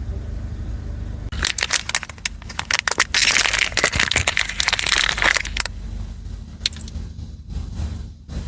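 Hard crystal candy being bitten and crunched: a run of sharp cracks starting about a second in, a dense crackling spell in the middle, then scattered clicks. A low steady hum lies underneath at the start.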